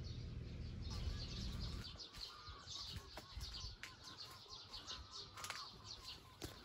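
Small birds chirping and twittering, many short quick calls throughout, with a low rumble in the first couple of seconds.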